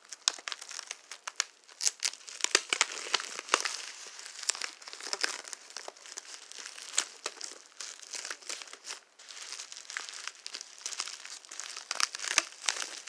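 Plastic bubble wrap crinkling and crackling as it is handled and unwrapped by hand, in a dense run of irregular sharp crackles.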